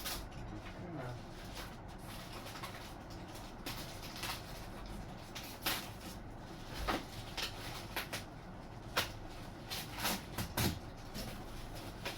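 Packaging being unwrapped by hand: tape pulled off and wrapping crackling, with scattered light knocks.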